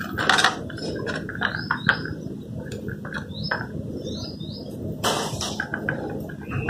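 Chopped onion being sprinkled by hand onto crisp fried papads on a plate: light taps and rustles as the pieces land, loudest about five seconds in. Small birds give short rising chirps several times in the background.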